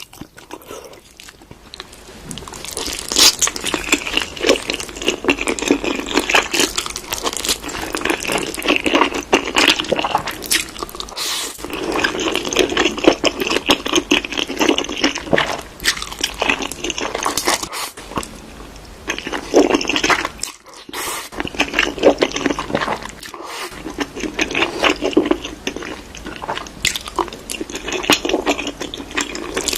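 A person chewing and crunching spicy Korean food close to the microphone. The crunching is quiet for the first two seconds, then dense and continuous, with a few brief pauses.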